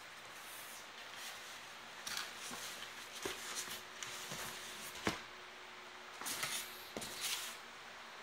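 Packaging being handled and opened by hand: a scattering of short rustles, with a few sharp clicks and light knocks.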